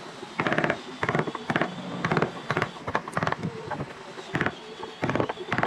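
Hand chisel scraping and paring the old wooden slats of a chair in short strokes, about two a second, each a brief crackling scrape, with a pause a little after three seconds in.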